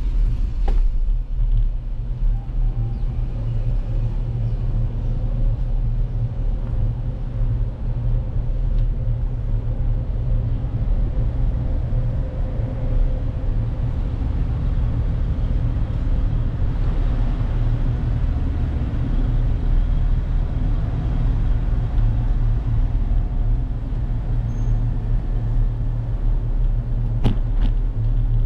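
Steady low rumble from a moving bicycle: wind buffeting the GoPro microphone and tyres rolling on asphalt. A single sharp click comes near the end.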